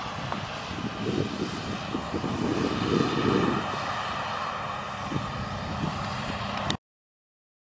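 Large engine running steadily with uneven low rumbling; the sound cuts off abruptly about seven seconds in.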